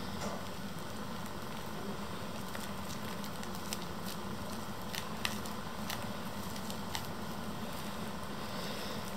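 Freshly made, sticky shaving-foam fluffy slime being stretched and pulled apart by hand, giving sparse faint crackles and pops over a steady low hiss.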